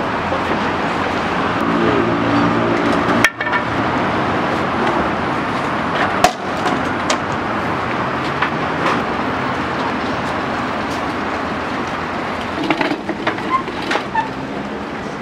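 Steady city road traffic with a large vehicle's engine running past. A few sharp knocks and clatter near the end as wooden stall boards and gear are handled.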